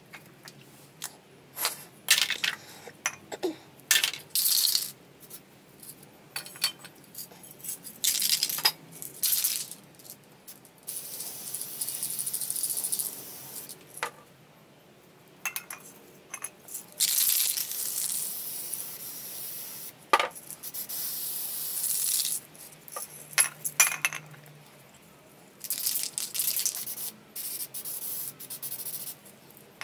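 Aerosol spray-paint cans in use. Over the first ten seconds the mixing ball rattles in short bursts as a can is shaken. After that come long hisses of paint being sprayed, in three stretches of a few seconds each, with more rattling between them.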